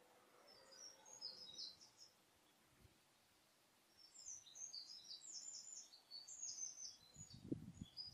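A small bird chirping in short, high twittering phrases: once about a second in, and again more busily from about four seconds. A few faint low thuds come near the end.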